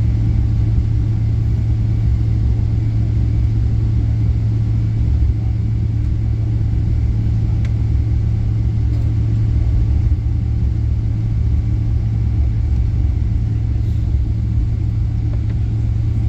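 Airliner cabin noise: a steady low rumble of jet engines and airflow with a constant hum, unchanging throughout.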